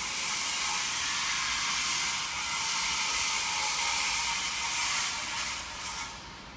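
Steady high hiss with no tone in it, easing off about six seconds in.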